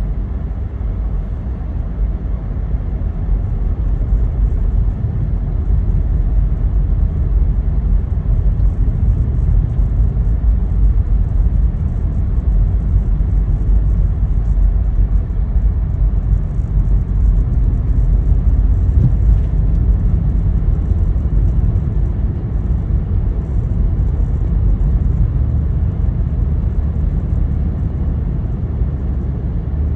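A car driving, with a steady low road-and-engine rumble that holds even throughout.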